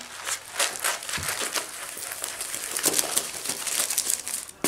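Crinkling and rustling of a canvas and paper instruction sheet being rolled up by hand, a steady run of irregular crackles.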